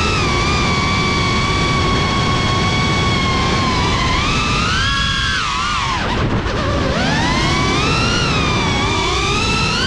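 Brushless motors and propellers of a Cinelog35 cinewhoop FPV drone whining over a rush of prop noise. The pitch holds steady for a few seconds, rises about four seconds in, dips near six seconds and climbs again as the throttle changes.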